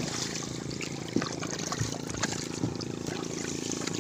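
Milkfish net being paid out by hand over the side of a boat, the mesh splashing and trickling into the sea, with a few sharp knocks. A steady low hum runs underneath.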